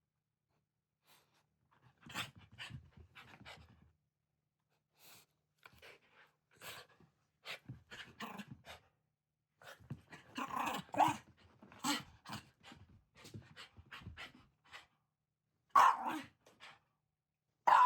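Shiba Inu dog vocalizing in short, irregular bursts with brief pauses between, louder around the middle and in two sharp peaks near the end.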